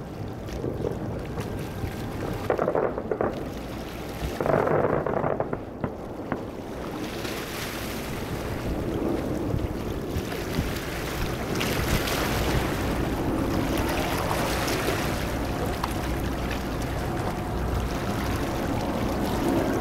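Outdoor ambience of a distant fireworks display in a lull between bursts: a steady low rumble and hiss, swelling briefly twice in the first six seconds, with a broader hiss building through the second half.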